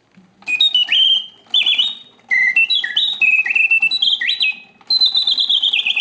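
Antique French Bontems mechanical singing bird cage playing: its bellows-driven whistle sounds bird-song phrases of quick warbles and falling glides. They start about half a second in and come in several bursts with short gaps.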